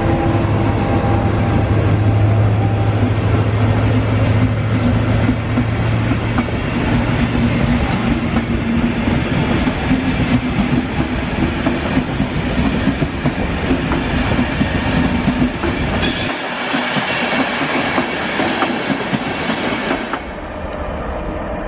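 Loco-hauled passenger train rolling past: coaches drawn by a Siemens ER 20 (class 223) diesel locomotive, wheels clattering over the rails. A steady engine hum fades over the first few seconds. The low rumble falls away sharply about three-quarters of the way through as the last coaches pass, leaving quieter station noise.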